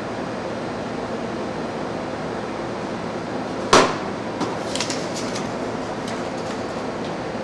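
Steady noise of a processing hall, ventilation and machinery, with one sharp knock a little under four seconds in, followed by a few lighter clicks.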